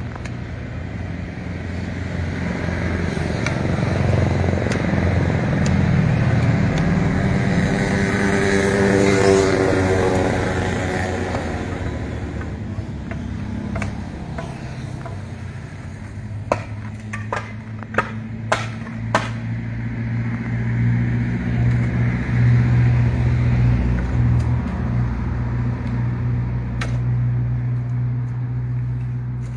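A motor vehicle engine runs with a steady low hum, swelling and fading once as it passes about eight to ten seconds in. About sixteen to nineteen seconds in come a few sharp knocks from digging tools.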